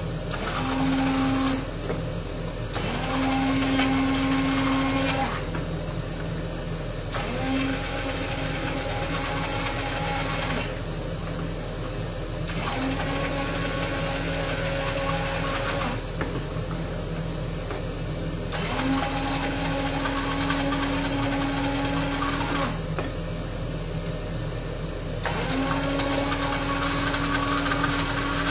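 Hand-held immersion blender running in a saucepan, puréeing cooked artichokes into a cream. It runs in spells of a few seconds with its motor whine, easing off briefly between spells about five times.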